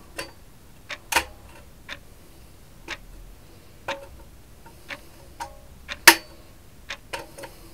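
Irregular small metallic clicks and ticks, about a dozen, from pliers gripping and bending over the end of a steel cotter pin on a pocket bike's twin-tip exhaust muffler. The bent end locks the pin so it cannot fall out. The sharpest click comes about six seconds in.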